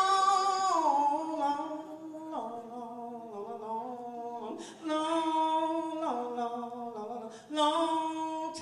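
A woman singing a gospel song unaccompanied through a microphone: long held notes that slide down from one pitch to the next, with short breaks between phrases.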